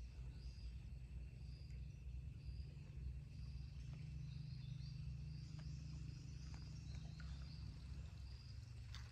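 Forest ambience: a short high-pitched call repeating about twice a second, over a faint steady high drone and a low rumble.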